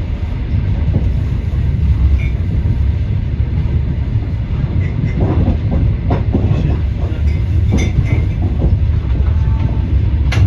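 Steady low rumble of a moving vehicle, with scattered irregular clicks and knocks.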